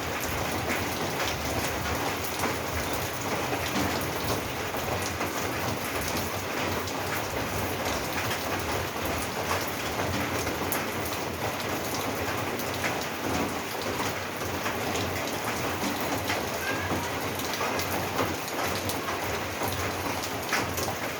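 Steady heavy rain falling on a roof, a dense even hiss with many individual drops ticking through it.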